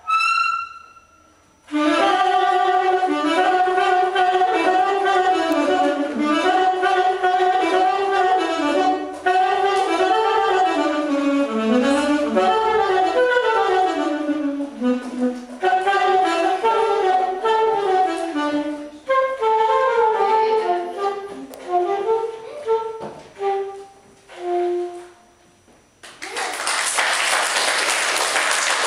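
Saxophone improvising a melody in quick, rising and falling phrases after one short high note at the start. The phrases break off near the end and applause from a group of children takes over.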